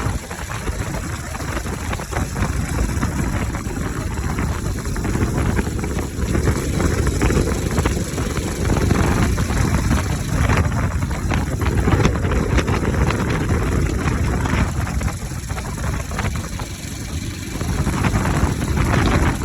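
Bajaj Pulsar RS 200's single-cylinder engine running with its air filter removed, the intake open, its sound swelling louder and easing off several times.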